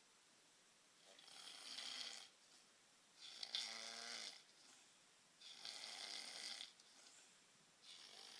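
Faint snoring, one snore roughly every two seconds, each lasting about a second; the second snore has a clear pitch and is the loudest, and a fourth starts near the end.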